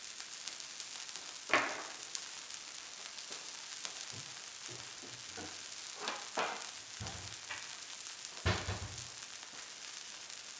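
Arepas de queso sizzling in butter on a flat griddle: a steady frying hiss, with a few brief knocks along the way.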